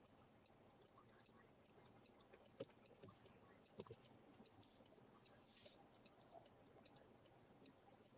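Faint, even ticking at about two to three ticks a second, typical of a car's turn-signal indicator relay, with a couple of soft knocks about three to four seconds in and a brief hiss a little after five and a half seconds.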